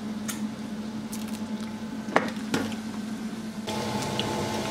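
Garlic cloves peeled by hand and then squeezed through a metal garlic press: a few small sharp clicks over a steady low hum, with a steadier whirring noise joining near the end.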